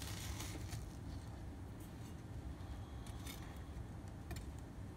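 Knife cutting into a deep-fried bun and cheese ball on a board: a short rasping cut in the first second, then a few light clicks and scrapes.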